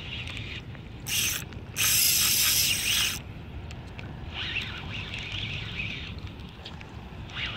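Spinning fishing reel being cranked by hand. Two loud rushing noises come about a second in, the second lasting over a second.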